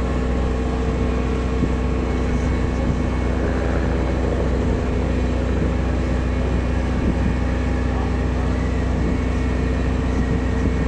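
Heavy ground equipment engine running steadily at a constant speed: a deep, even drone with a steady hum over it.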